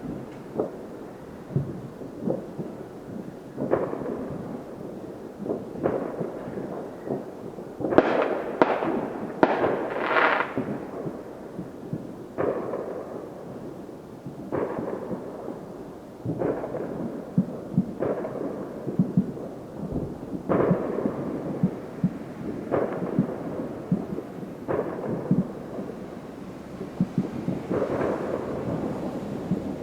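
Distant fireworks going off: a steady run of bangs and crackles, each with an echoing rumble, and a quick cluster of louder bangs about eight seconds in.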